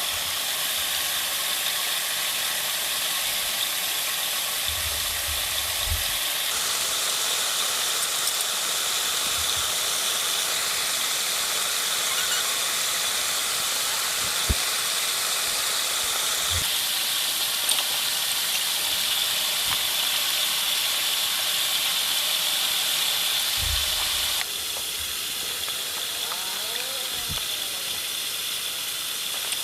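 Steady rain hiss that shifts abruptly in tone a few times, with a few soft low thuds.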